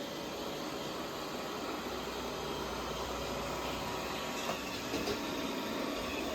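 Roomba robot vacuum running, a steady whirring hiss from its motor and brushes, with a couple of faint knocks about four and a half to five seconds in.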